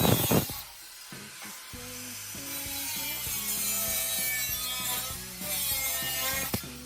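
A few rapid abrasive scraping strokes on the soldered patch of a steel gas tank, cutting off about half a second in; background music with a stepping bass line fills the rest.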